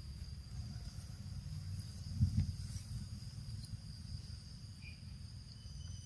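Steady high-pitched insect chorus, several thin unbroken tones, over a low rumble, with a brief louder low thump about two seconds in.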